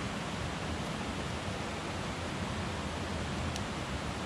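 Steady rushing of flowing water, as of a stream running through the gorge, with one faint crackle from the wood campfire about three and a half seconds in.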